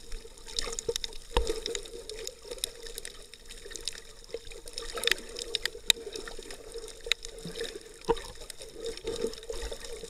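Underwater sound picked up through an action camera's sealed waterproof housing: muffled water movement with scattered sharp clicks and a steady faint hum.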